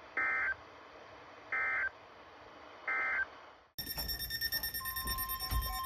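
Three short bursts of Emergency Alert System (SAME) end-of-message data tones, each under half a second and about a second and a half apart, marking the end of the weather warning. A little past halfway the sound cuts off and gives way to a dense pattern of steady electronic tones and rapid beeps.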